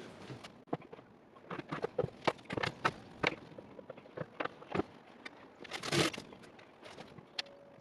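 Irregular clicks and knocks of drawer-slide hardware and tools being handled and set against melamine cabinet panels, with a short scrape about six seconds in.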